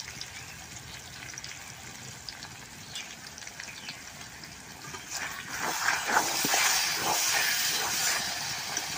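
Chicken and sesame curry sizzling in oil in an aluminium kadai over high heat, a sign that the sesame has released its oil. About five seconds in, a metal spatula starts stirring and scraping the pan, and the sizzle grows louder.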